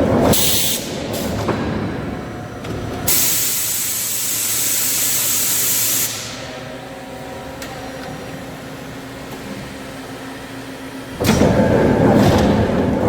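ZGD-series roll forging machine running on test: machine noise, then a hiss of released air for about three seconds, a quieter stretch with a steady motor hum, and loud machine noise again about eleven seconds in.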